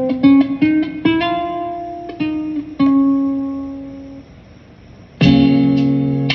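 Solo guitar playing slowly: a run of plucked single notes over the first three seconds that fades away, then a full chord struck about five seconds in and left ringing.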